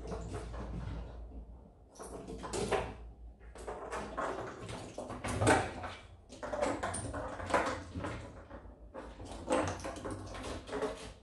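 A pine cone skittering, rattling and knocking across wooden deck boards as kittens bat it about, mixed with the scrabble of their paws on the boards. It comes in repeated bursts every second or two.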